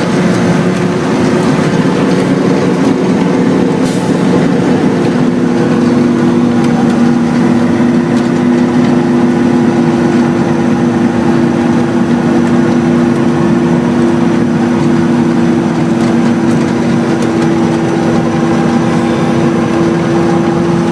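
Helicopter running steadily: a loud, even drone with several steady hum tones, one of which steps up slightly about six seconds in.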